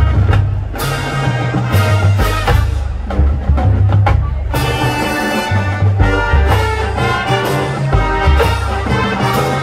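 High school marching band playing, with brass over a steady drum beat.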